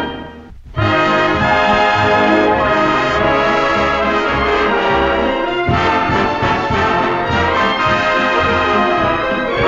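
Full orchestral film-score music with prominent brass. It breaks off briefly in the first second, then comes back in at full strength and plays on.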